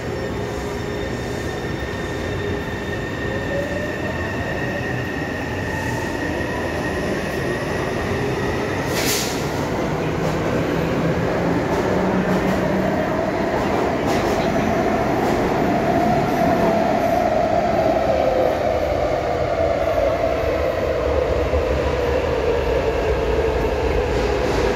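Taipei Metro C301 electric train pulling away from the platform: its motors whine in several tones that climb in pitch as it gains speed, over the rumble of wheels on rail, getting louder. A sharp click about nine seconds in.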